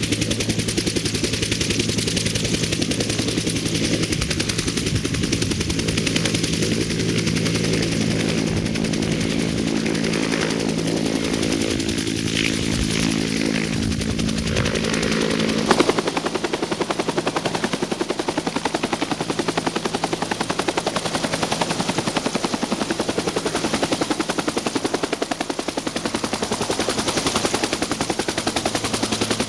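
Helicopter running close by, its rotor blades chopping rapidly and steadily, with a steady hum under it that drops away about halfway through.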